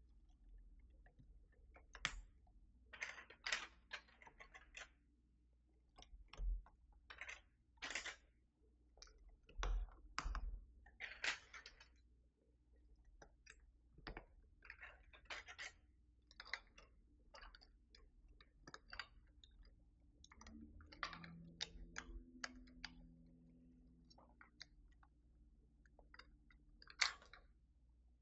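Faint, irregular plastic clicks and taps as keycaps are fitted and pressed onto the switches of a Keychron V6 Max mechanical keyboard, with the sharpest click near the end.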